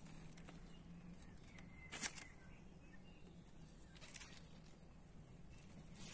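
Mostly quiet, with a brief rustle about two seconds in and a softer one about four seconds in.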